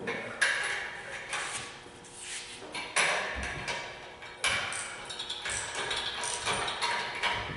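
Metal clanks and clinks of a hoist chain and the L48 350 V8 engine with its transmission being lifted out of the engine bay on an engine hoist: several sharp knocks, each ringing briefly, among lighter rattles.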